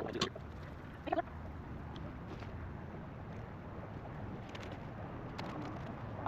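Steady outdoor background noise with a brief faint voice about a second in, a few light clicks near the end, and a sharp knock right at the end.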